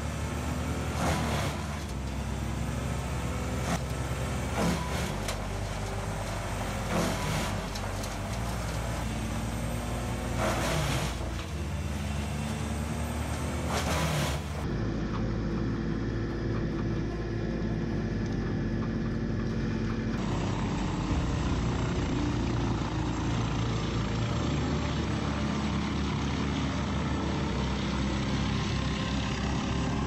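Wood chipper's engine running under load, with repeated sharp cracks and snaps as a log is fed into the cutters. About halfway in the sound changes to a large whole-tree chipper running steadily as a grapple loader feeds it trees, without the sharp cracks.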